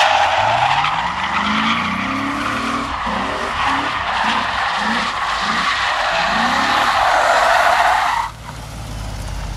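BMW E36's 4.4-litre V8 revving hard during a drift, first in one long rising sweep, then in short repeated blips, while the rear tyres squeal continuously. The tyre squeal cuts off suddenly about eight seconds in, leaving a lower rumble.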